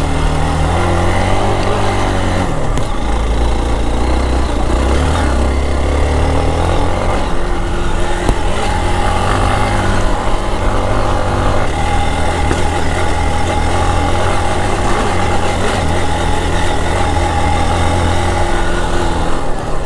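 Hero XPulse 200 4V's single-cylinder engine running under load on a rough off-road climb, its revs rising and falling with the throttle, with a steady hiss over it.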